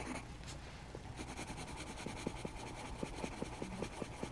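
Grey coloured pencil shading on a paper drawing pad, a faint scratching in quick, even strokes, about five a second, that become distinct about two seconds in.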